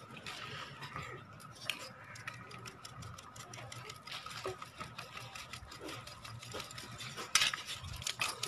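Flour being sifted through a metal sieve that is tapped over and over by hand: a fast, uneven run of light clicks and rattles, with a louder flurry about seven seconds in.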